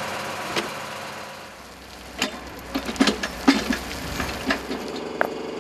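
Excavator engine running while soil and gravel pour out of its bucket: a steady rush of falling dirt at first, then stones knocking and clattering from about two seconds in.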